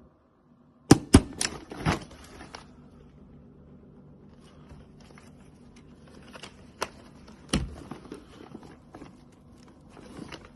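A few sharp clicks and knocks, four close together in the first two seconds and two more later, over a low steady hum and light rustling.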